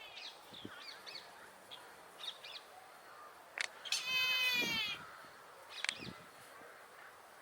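Brahminy kite giving one long mewing call about four seconds in, its pitch falling slightly. A few short faint chirps come before it, and two sharp clicks fall around it.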